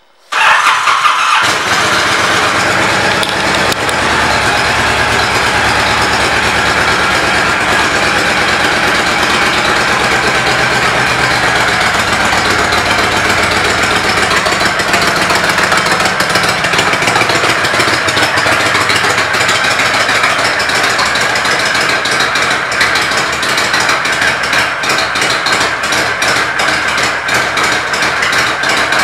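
Honda VTX 1300 V-twin engine starting up and then idling steadily.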